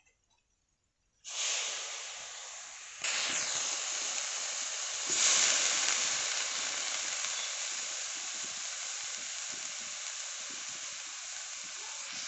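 Wet, freshly washed water clover (shushni shak) leaves sizzling in a hot wok, the water on them flashing to steam with a loud hiss. It starts suddenly about a second in, grows louder in steps around three and five seconds in, then slowly eases off.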